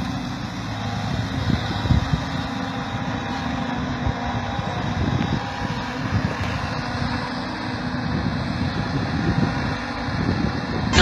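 Engine of a heavy vehicle or machine running steadily, with a low rumble and a few brief knocks.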